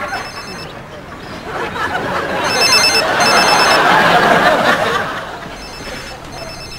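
Mobile phone ringtone: rapid high electronic beeps in bursts about a second long, with roughly two-second pauses between them. A loud wash of noise swells up under the ringing around the middle.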